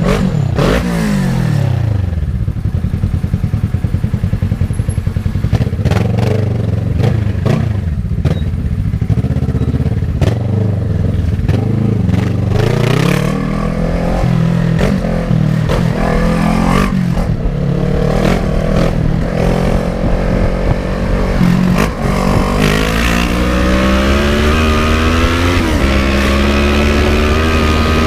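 Kawasaki ER-6n's 650 cc parallel-twin engine being ridden hard: its note falls off at the start, chugs low, then rises and falls repeatedly with the throttle, climbing steadily near the end as the bike accelerates.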